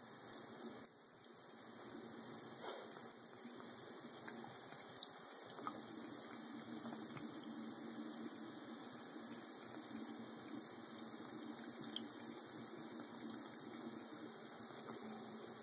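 Bathroom sink faucet running a thin steady stream into the basin, the water splashing on a cat's head and fur as it drinks. A few brief ticks sound over the running water.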